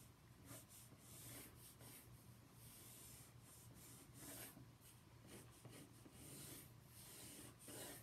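Faint scratching of a wax crayon stroked back and forth across paper in irregular strokes, over a steady low hum.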